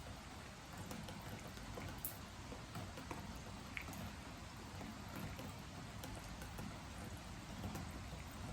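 Rain falling on a wooden deck: a steady hiss of rain with scattered drops ticking on the boards, one sharper drip about two seconds in.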